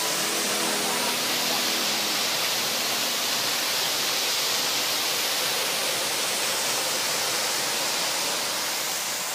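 Steady rushing hiss of a waterfall, with the last notes of background music dying out about a second in; the sound fades out near the end.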